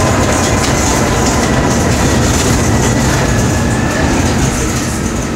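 Tram car running along its rails, heard from inside the passenger cabin: a loud, steady rumble and rattle of wheels on track, with a faint steady whine above it.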